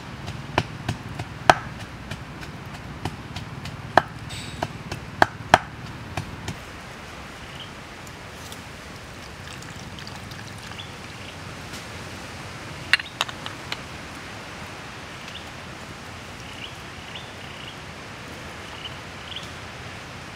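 Wooden pestle striking in a wooden mortar while pounding chili and garlic: irregular sharp knocks, loudest in the first six seconds, and a few more about 13 seconds in. In between, a liquid seasoning is poured into the mortar quietly, over a steady outdoor background with a few faint high chirps near the end.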